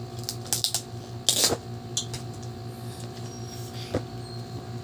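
A cardboard gift box and a paper card being handled and opened: several crisp clicks and crinkles, with one louder paper rustle about a second and a half in. A steady low hum lies underneath.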